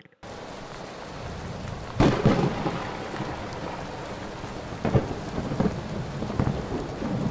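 Thunderstorm sound effect: steady rain with a loud thunderclap about two seconds in, then several smaller cracks of thunder.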